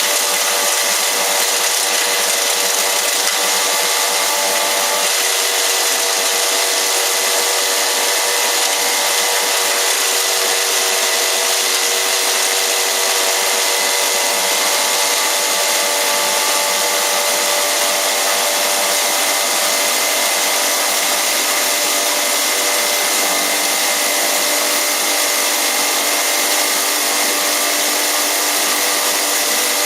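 Electric hammer mill herb grinder running continuously: a loud, even mechanical rush with several steady whining tones over it.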